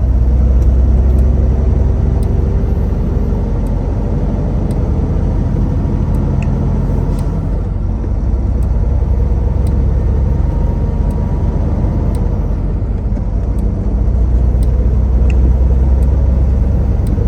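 Steady low drone of a semi-truck's diesel engine and road noise heard inside the cab while driving at highway speed, swelling slightly near the start and again near the end.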